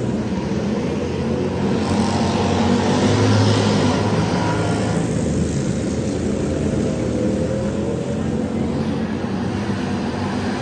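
Engines of mini monster trucks racing around a dirt track, a continuous engine drone that swells louder about two to four seconds in.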